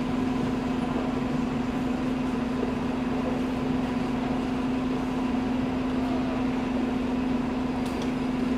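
A 2011 New Flyer C40LF CNG transit bus idling at a stop, giving off a steady, even hum.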